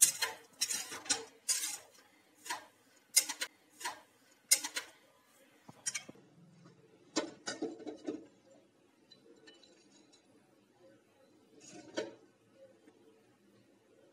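Metal spoon scraping and clinking against a metal kadai while stirring and scooping cooked poha. Quick strokes come through the first half, then a few scattered knocks and one last one near the end.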